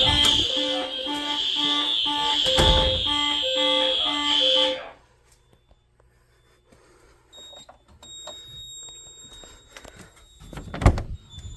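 Fire alarm horns and speaker-strobes of a Simplex 4006 system sounding together: a steady shrill tone with lower tones pulsing quickly and evenly under it, cutting off abruptly about five seconds in. After that it is almost quiet, with faint handling clicks and a single knock near the end.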